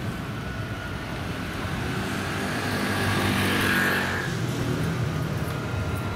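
Street traffic as a Siemens Combino tram slowly approaches along the track, with a low hum under a steady noise. A passing vehicle swells to its loudest a little after the middle and then fades.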